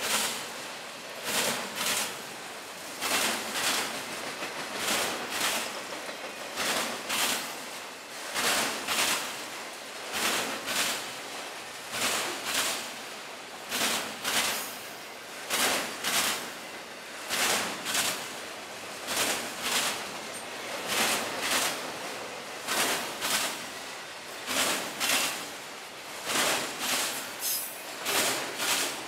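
Freight cars rolling past, their wheels clicking over a rail joint in a steady clickety-clack: pairs of clicks about every two seconds as each car's trucks cross.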